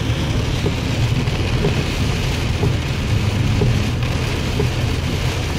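Heavy rain on a moving car, heard from inside the cabin: a steady hiss of rain and wet road over a low rumble of engine and tyres.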